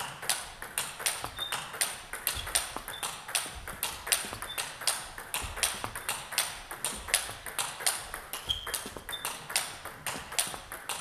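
Table tennis rally: the ball clicks off the rackets and the table about four times a second in a steady, continuous exchange, hit at medium power in a two-point footwork drill.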